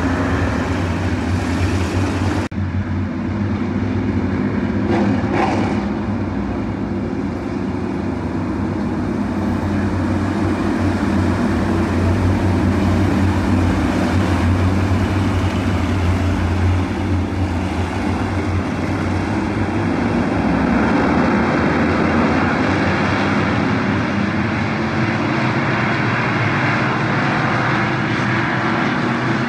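Several dirt-track race car engines running together at racing speed, a steady loud drone of many cars with no single car standing out. The sound dips for an instant about two and a half seconds in.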